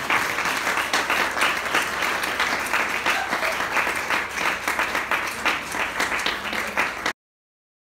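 Audience applauding, a dense patter of many hands clapping, which cuts off suddenly about seven seconds in.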